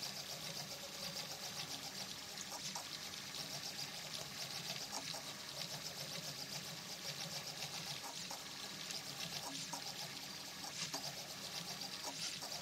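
3D printer running a print, its stepper motors whirring and chattering in quick, irregular short moves as the print head lays down a gear's honeycomb infill, over a steady low hum.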